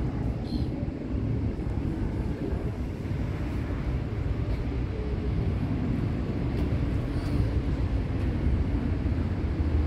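Wind buffeting the microphone: a steady, rough low rumble.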